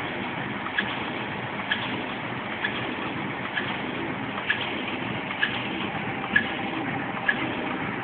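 A-95T tissue machine running steadily, with a sharp click about once a second as it cycles.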